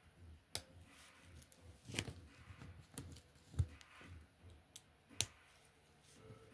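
LEGO plastic pieces being handled and snapped together: a handful of sharp, scattered clicks, the loudest about three and a half seconds in.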